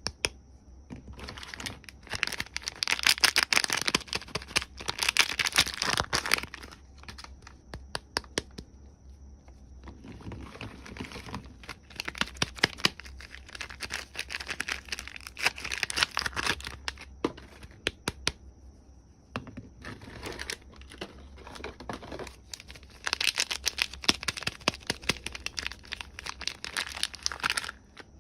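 Soap wrapping being crinkled and torn open by hand, in several bouts of a few seconds each full of sharp crackles, with quieter pauses between them.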